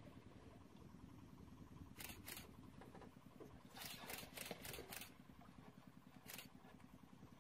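Camera shutter clicks over a low steady rumble: two clicks about two seconds in, a quick run of about five between four and five seconds in, and a single one near the end.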